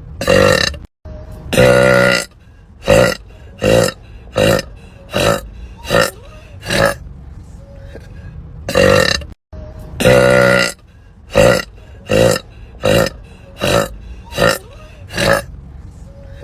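A woman burping over and over, about sixteen burps in quick succession. Most are short, and a few are long and drawn out. The sound cuts out abruptly twice between burps.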